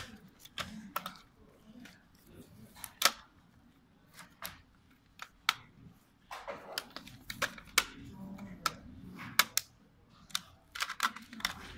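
Irregular plastic clicks and snaps from a DPVR VR headset's shell and head strap being handled and pried apart during disassembly.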